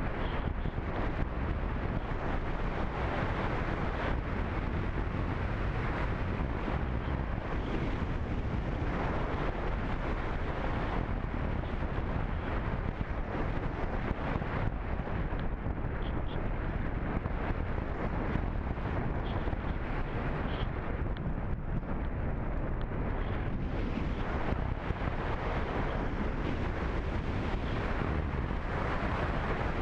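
Steady rush of wind over the microphone of a camera riding on an unpowered radio-controlled glider in flight, with small swells in the rush and no motor sound.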